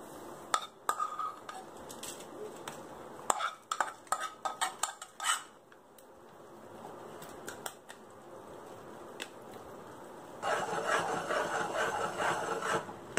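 Steel pan and spoon clinking and scraping against a steel plate as ghee-fried melon seeds are tipped out and spread, a run of sharp clicks over the first five seconds. About ten seconds in, a ladle starts scraping steadily through the thick carrot purfi mixture in a metal kadai.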